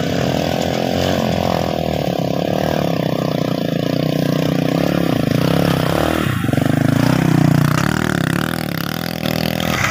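Small motorbike engine running as the bike rides up close carrying straw bales across a rice field, with a brief break in the engine note about six seconds in and getting louder as it passes near.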